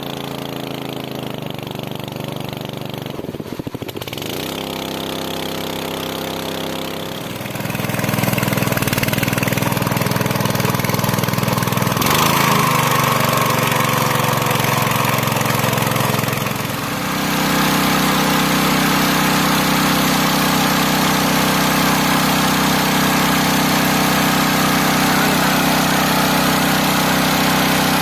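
Small engine-driven water pump running steadily while draining a pond, its engine speeding up about a third of the way in, dropping briefly, then settling at a higher, louder speed.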